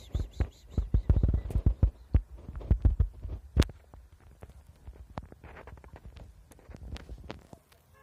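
Irregular low thumps and knocks from the phone being handled and carried as the person filming moves, several a second for the first half and thinning out after.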